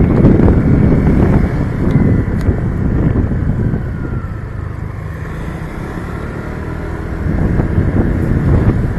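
Motorcycle riding along a road: heavy wind buffeting on the microphone over the running engine. It eases in the middle and builds again near the end.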